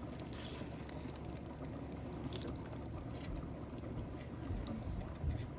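Faint scraping and a few soft ticks of a serving spoon digging a scoop of baked macaroni and cheese out of a foil pan, over a low steady background hum.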